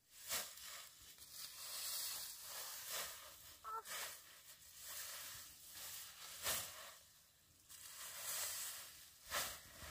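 Long grass being cut and gathered by hand: stalks swishing and tearing in repeated strokes, roughly one a second.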